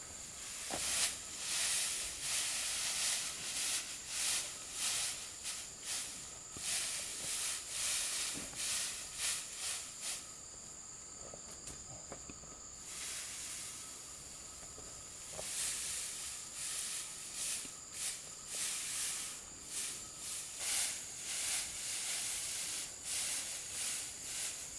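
Dry straw rustling and crackling in repeated bursts as armfuls are dropped and spread by hand over soil, with a pause of a couple of seconds near the middle. A steady high insect drone runs underneath.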